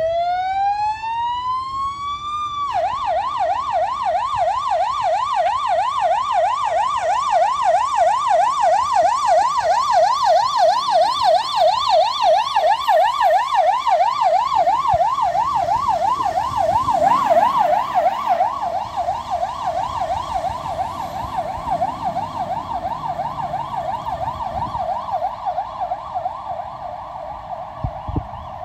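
Siren of an Iveco 160E28 / Magirus aerial ladder fire truck on an emergency call-out. It opens with a rising wail for about three seconds, then switches to a rapid warbling yelp. The yelp grows louder as the truck passes and fades as it drives away.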